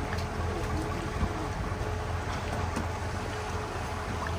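Small open canal tour boat's motor running steadily as a low, even hum, with water noise along the hull.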